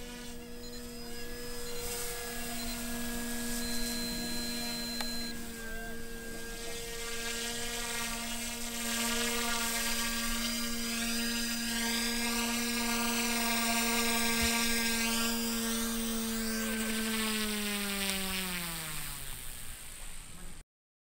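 OMP Hobby M1 micro electric RC helicopter in flight: a steady high motor and rotor whine, with the blade hiss swelling and wavering through the middle. Near the end the whine falls steadily in pitch as the rotor head spins down, then cuts off suddenly.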